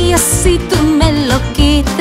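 Country-pop band music between sung lines: a melodic lead line with bending pitch over a steady bass-and-drum beat.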